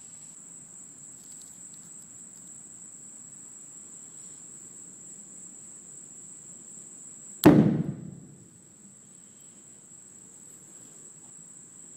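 Homemade calcium carbide cannon firing once, about seven and a half seconds in: a single sharp, loud boom from the acetylene charge going off, which dies away within about a second.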